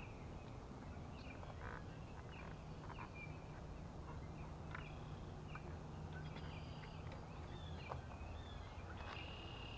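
Birds chirping and calling in short, scattered notes over a steady low rumble, with a few faint clicks.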